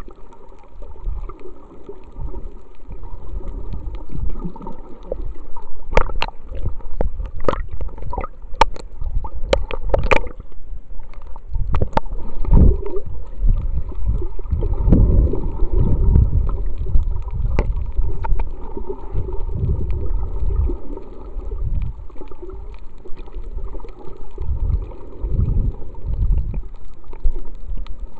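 Water noise heard through an underwater camera: a muffled, low, churning gurgle that swells and fades, with a quick run of sharp clicks about six to ten seconds in.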